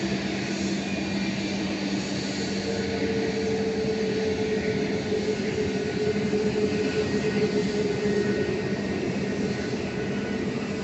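Airbus A320-family airliner's twin turbofan engines running at low power as it taxis: a steady drone with a low hum and a higher steady tone that comes in a couple of seconds in.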